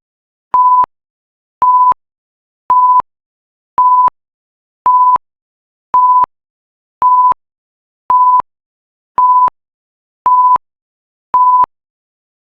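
Countdown timer's alarm: a short, single-pitched electronic beep repeated evenly about once a second, signalling that the set time is up.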